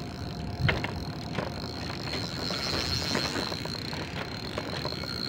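Spinning fishing reel working against a hooked fish that pulls hard: a run of irregular ratcheting clicks, with a sharper click about two-thirds of a second in, over a steady high-pitched tone.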